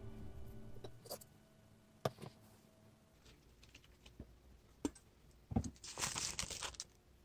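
A few soft clicks and taps from handling a small notebook, then crinkling and rustling of a sheet of bookbinding reinforcement material being unrolled, from about five and a half seconds in.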